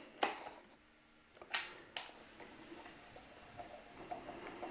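A few small clicks and scrapes of a screwdriver on the battery's terminal screws as they are checked for tightness, one near the start and two sharper ones around the middle, then faint handling noise.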